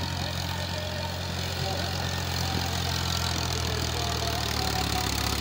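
A farm tractor's diesel engine runs steadily while pulling a tine cultivator over loose, rough soil. It gets a little louder about two seconds in.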